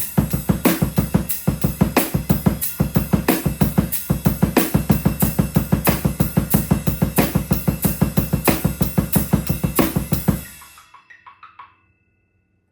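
Drum kit playing a steady rock beat: eighth notes on the ride cymbal, snare on the backbeat and the kick drum playing changing groupings of notes, with a metronome clicking along. The playing stops a little over ten seconds in and the cymbals ring out.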